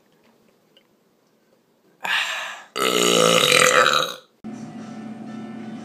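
A long, loud burp about three seconds in, lasting about a second and a half and falling in pitch, just after a brief rushing noise. A steady hum sets in afterwards.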